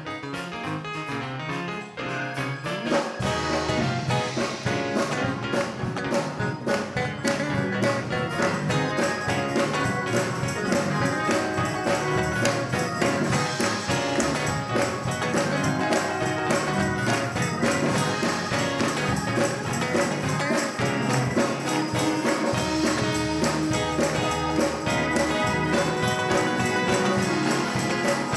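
Instrumental music with a steady beat, the bass coming in about three seconds in.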